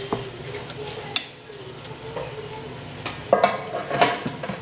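Metal spoon scraping and clinking against a plate of rice and pasta as food is scooped up, a few sharp scrapes and clicks, the loudest a little after three seconds in and at about four seconds.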